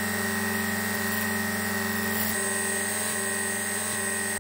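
Small bench belt sander running steadily, its motor hum mixed with the hiss of the abrasive belt, as a hardened super glue and baking soda piece is ground against the belt. The sound cuts off suddenly at the end.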